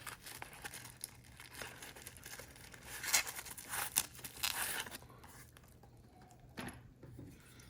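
Packaging crinkling and rustling as a knife is unwrapped from its box and wrapping, loudest in a run of crinkles about three to five seconds in, with one more short rustle near the end.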